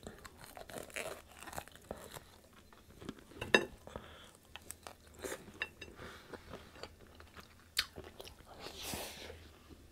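A person chewing and biting into crispy fried pork chop, close up: irregular crackly crunches and wet chewing, with one sharp loud crunch about three and a half seconds in.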